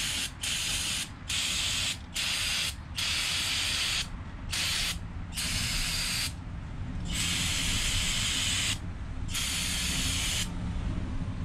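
Aerosol can of brake parts cleaner spraying onto connecting rods in about nine separate hissing bursts, each from half a second to about a second and a half long, the longest two near the end.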